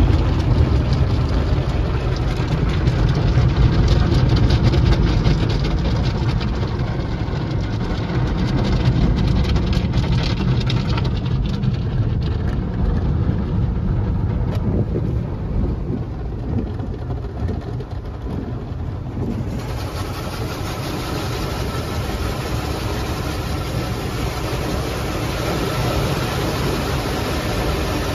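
Automatic tunnel car wash heard from inside the car: water spray drumming on the glass and soft-cloth brushes sweeping over the windshield and windows, over a low rumble. Partway through, a loud hiss of spray comes on suddenly and keeps going.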